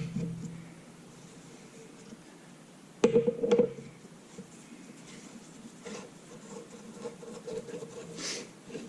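Small tack hammer tapping on a wrench fitted to a countersunk screw in an aluminium magneto base, jarring it loose in the way an impact driver would. One tap at the very start, then a quick cluster of sharp metallic taps with a short ring about three seconds in, followed by lighter clinks of the tools.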